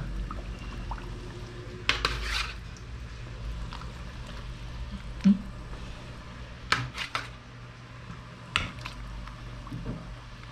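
A few separate metal clinks and knocks of a utensil against a cooking pot while fish is added to simmering soup, over a steady low hum.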